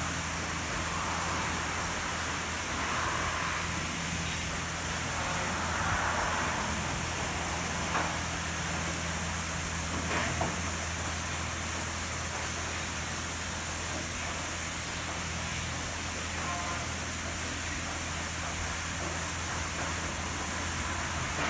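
Oasis Typhoon touchless car wash spraying a car with high-pressure water: a steady hiss of spray over a steady low hum.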